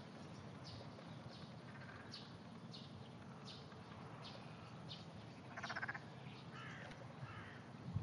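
Faint frogs calling: short, high calls repeating a little faster than once a second, with a louder rasping, pulsed call a little past halfway.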